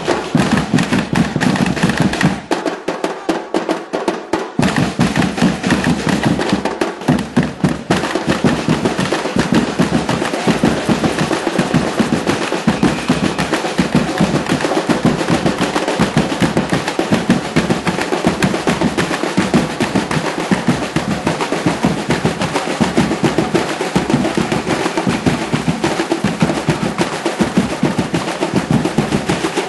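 A samba percussion section (batucada) playing a fast, dense drum rhythm. About two and a half seconds in, the deep bass drums drop out for a couple of seconds while the higher drums carry on, then the full section comes back in.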